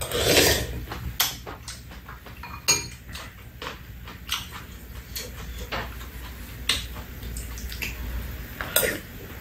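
Metal spoons and chopsticks tapping and scraping against ceramic bowls during a meal: many light, irregular clicks and clinks.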